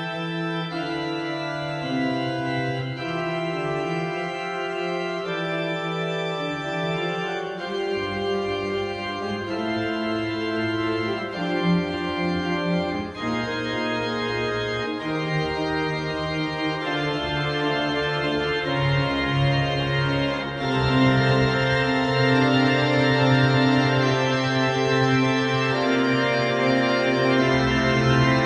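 Pipe organ playing held chords over a sustained pedal bass, the chords changing every second or two. About two-thirds of the way in the sound grows fuller and louder.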